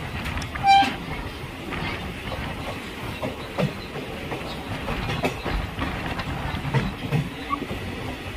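Passenger train running along the track, heard from an open coach door: a steady rumble of the wheels with irregular clicks and knocks, and a short high-pitched squeak about a second in.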